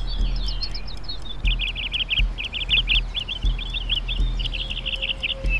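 Small birds chirping in quick, dense runs of high chirps and trills, busiest from about a second and a half in. Underneath are a low steady hum and soft, irregular low thumps.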